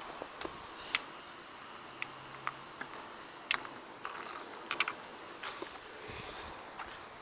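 Irregular light metallic clinks and taps, several with a brief ring. The sharpest comes about a second in, and there is a quick run of three just before the end of the fifth second.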